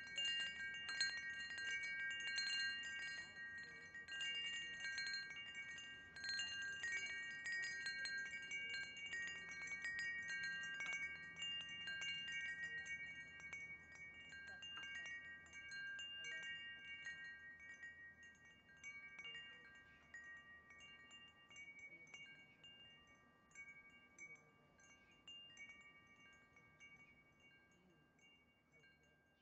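Wind chimes ringing: several clear tones struck at uneven moments and overlapping as they ring on. The chiming fades out gradually, growing sparse and faint toward the end.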